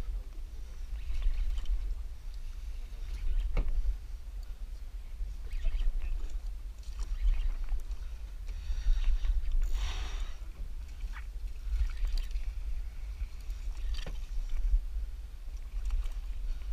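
Water sloshing and splashing around a fishing boat over a steady low rumble, with a sharp click about three and a half seconds in and a louder splash about ten seconds in.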